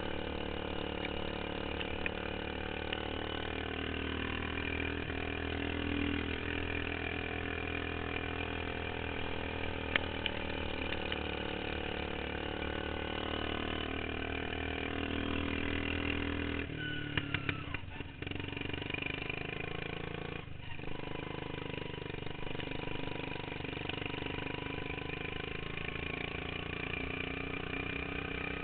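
Modified racing lawn mower engine running steadily at speed. A little past halfway its note drops suddenly, with a few clicks and knocks around the change.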